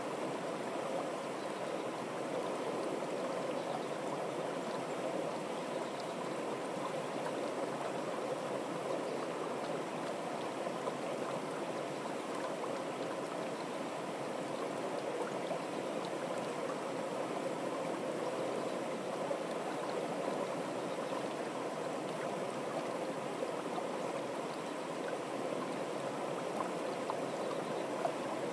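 Water spilling over a small stepped weir into a churning pool: a steady, even rush of flowing water.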